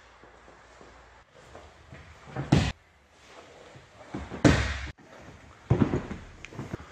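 Wrestlers being thrown onto padded foam mats in Shuai Jiao practice: three heavy body slams on the mat, the first about two and a half seconds in and the next two a second or two apart.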